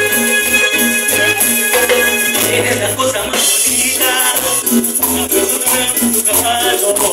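A live tropical band playing Latin dance music: a steady shaker rhythm over a bouncing bass line, with a keyboard melody.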